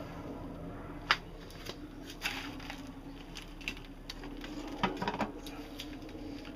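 Scattered light clicks and knocks from a slow cooker being handled, likely its lid and control, over a steady low hum.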